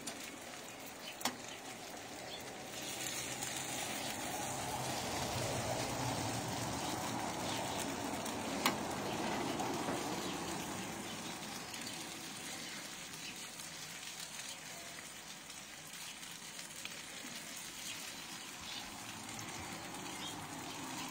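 Chicken pieces with onion and capsicum sizzling on a hot griddle tray on a gas barbecue as they are stirred. The sizzle swells a few seconds in and eases off after about ten seconds, with two sharp clicks along the way.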